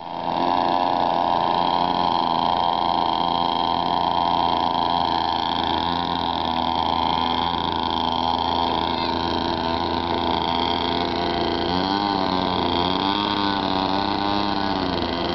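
Homemade outboard motor idling steadily, its pitch wavering slightly over the last few seconds.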